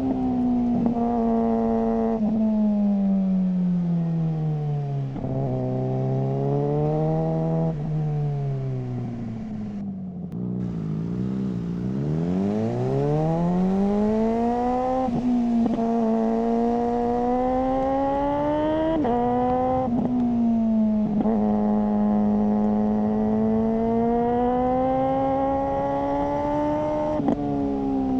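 Suzuki GSR600 inline-four engine running through a GPR Ghost aftermarket exhaust. Its pitch rises and falls with the throttle and breaks sharply at several gear changes. It drops to a low engine speed around the middle, then climbs again under acceleration.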